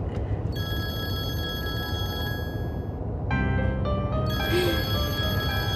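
A smartphone ringing with a melodic ringtone: held tones at first, then notes stepping through a tune from about three seconds in, over the low steady hum of a car's interior.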